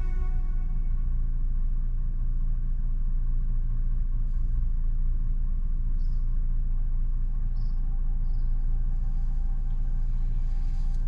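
Car engine idling with a steady low rumble, and a few faint high chirps about halfway through.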